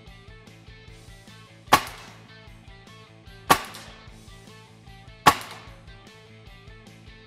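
Three shots from a Gamo Swarm Magnum .22 gas-piston breakbarrel air rifle: sharp cracks about two seconds apart, each measured at around 90 dB on a sound level meter. Background music plays under them.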